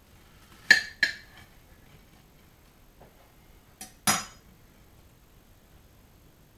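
Knife and fork clinking against a plate while cutting up food: two sharp clinks just under a second in, then a louder, ringing clink about four seconds in.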